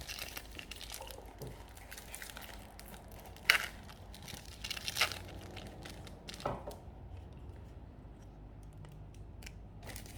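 Wrapper of a Panini Prizm football card pack being torn open and crinkled, with the sharpest tears about three and a half and five seconds in; the crackling dies down after about seven seconds.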